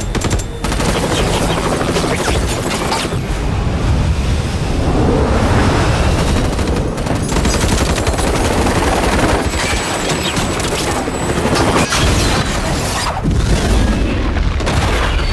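Action-film soundtrack mix: bursts of automatic gunfire and heavy booms over a continuous loud roar, with film score underneath.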